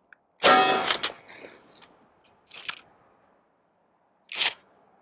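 A Remington 870 pump-action shotgun fires a shot of buckshot about half a second in. The pump is then racked back and forward, one clack about two seconds later and another near the end, trying to feed the next shell from a magazine that has been failing to feed.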